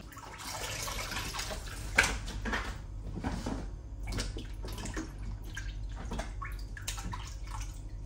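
Hands washing fruit in a stainless-steel sink full of water: irregular small splashes and drips as the fruit is rubbed and lifted. A sharp knock about two seconds in.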